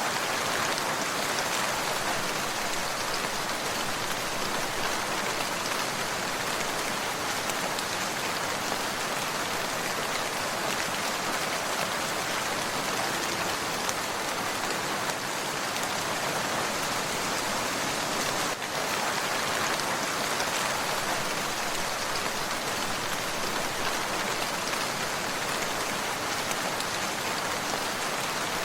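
Steady rain falling, a continuous even patter of raindrops on a surface, with a brief dip in level about two-thirds of the way through.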